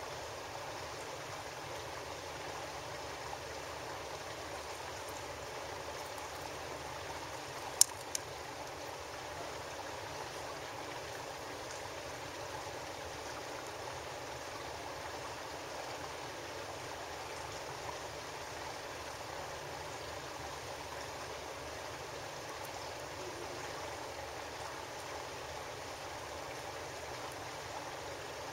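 Steady rushing hiss like running water, broken by two sharp clicks close together about eight seconds in.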